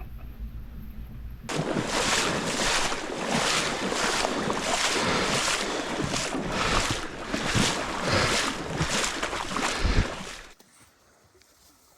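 Water splashing in an even rhythm of about two splashes a second, which cuts off suddenly near the end.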